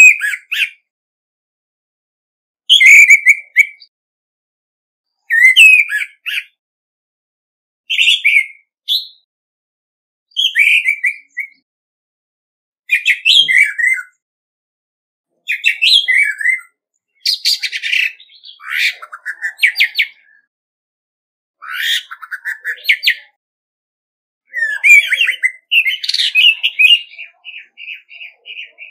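Male orange-headed thrush singing its challenge song: short, varied whistled phrases about every two and a half seconds. In the second half the phrases grow longer and more complex, ending in a long run of rapid repeated notes.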